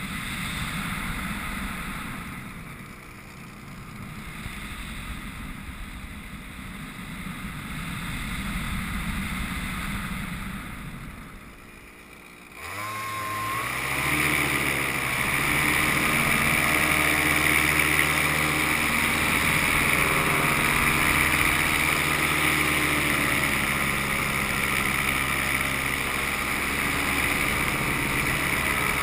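Wind rushing over the microphone in flight, then about twelve seconds in the Miniplane Top 80 paramotor's single-cylinder two-stroke engine is throttled up, its pitch climbing for a second or so before it settles into steady running under power.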